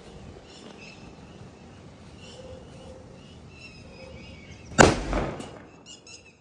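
Murga Sahab mega bullet bomb firecracker bursting with one very loud, sharp bang about five seconds in, its echo dying away within about half a second.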